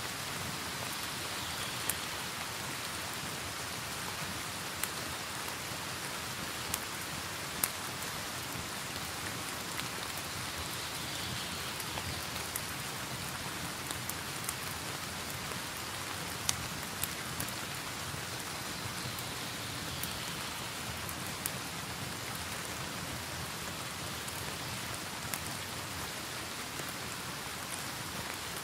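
Steady rain hiss mixed with a crackling wood fire, with a few sharp pops standing out at irregular moments.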